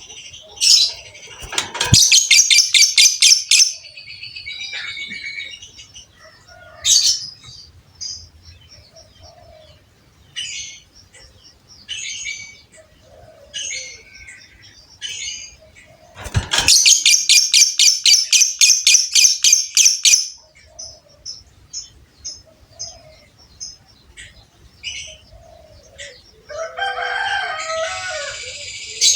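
Lovebird singing: two long, rapid chattering trills of fast repeated high notes (the 'ngekek' song), with short chirps in between and a lower, varied call near the end.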